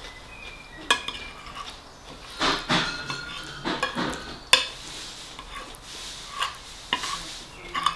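Metal fork and spoon scraping and clinking against a ceramic dinner plate while mashed-potato fish pie is scooped up, with a few sharp clinks about a second in, midway and near the end.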